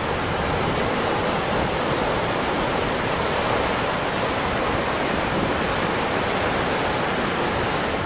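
Low surf breaking and washing up a sandy beach: a steady, even rush of water with no separate wave crashes standing out.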